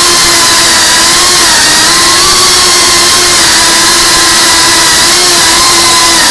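FPV quadcopter's brushless motors and propellers whining at a steady throttle, heard from its onboard camera, over a loud rushing hiss. The pitch holds nearly level with small wavers.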